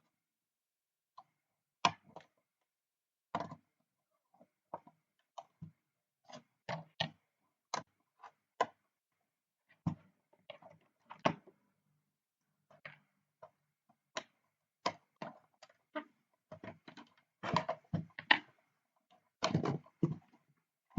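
Irregular clicks, knocks and scrapes of scissors prying at the plastic clips that hold a circuit board inside a bench power supply's case, with a run of louder knocks near the end.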